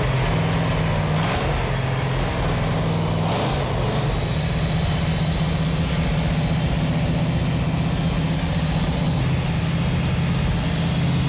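A freshly restored 440 Six Pack V8 from a 1969½ Dodge Super Bee, topped with three Holley two-barrel carburettors, idling steadily. It is a newly restored engine running well after a hard first start.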